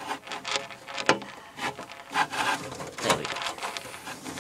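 A computer case being worked on as a DVD drive is fitted into its drive bay: a run of short, irregular scrapes, rubs and clicks as the drive is slid and lined up with the screw holes.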